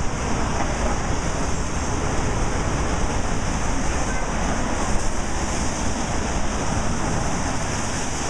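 Steady city street noise, mainly passing traffic, picked up by a camera carried while walking, with a low rumble of handling noise on the microphone.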